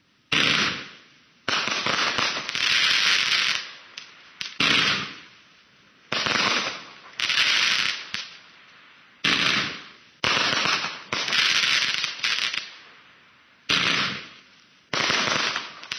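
Judgement Day 24-shot consumer fireworks cake firing. About a dozen loud shots, one every second or so, each a sharp bang that trails off over about a second.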